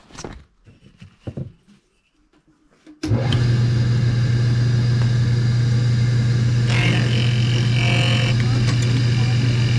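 Faint handling knocks, then about three seconds in the electric motor of a woodworking machine switches on abruptly and runs steadily with a strong low hum.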